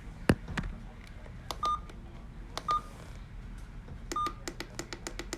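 Three short single-pitch electronic key beeps mixed with sharp clicks and taps, the clicks coming in a quick run near the end; a sharp click about a third of a second in is the loudest.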